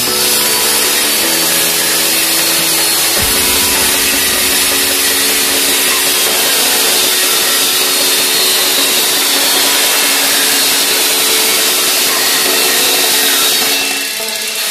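G.S. Paik CSM-14 table circular saw ripping through a thick block of wood, a loud, steady sawing noise from blade and timber, easing off near the end as the cut finishes.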